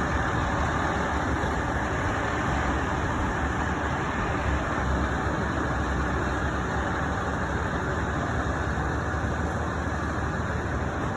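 Crane's engine running steadily, a continuous even rumble with no change in pace.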